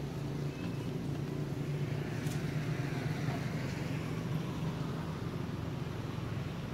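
Steady low engine hum of a motor vehicle running in the background, unchanging, with a faint tick about two seconds in.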